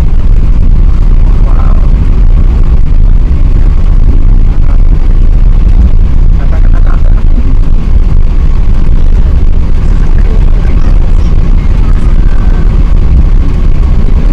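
Loud, steady low rumble of an Airbus A380's four jet engines and airflow, heard inside the passenger cabin.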